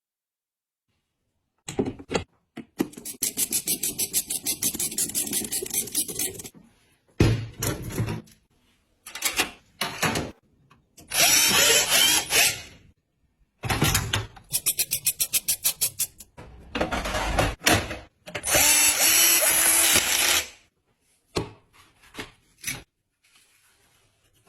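Small power drill run in several short bursts, some as rapid, even clicking and some as a steady whirr, with pauses between.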